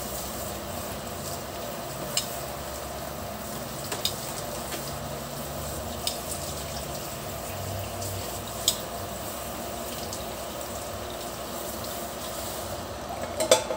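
Chicken and pork adobo cooking in a wok over a gas burner, a steady sizzle. A few light clicks come about two seconds apart, and a small clatter comes near the end.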